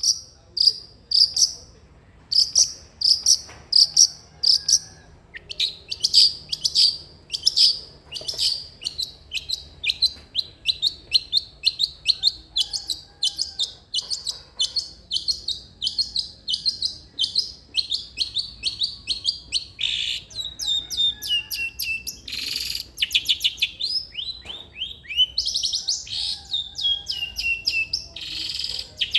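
Long-tailed shrike (cendet) singing a fast chattering song: at first short high chips a few times a second, then from about five seconds in a dense run of rapid trilled notes mixed with downward-slurred notes. Two brief harsh rasping notes come in the second half.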